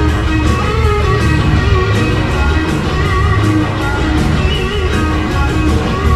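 Blues-rock band playing: electric guitar over bass and drums, with a steady drum beat.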